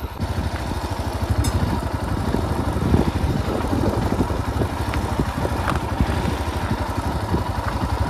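Motorcycle engine running at low speed as the bike is ridden over a rough, stony dirt track, a steady rapid beat of firing pulses.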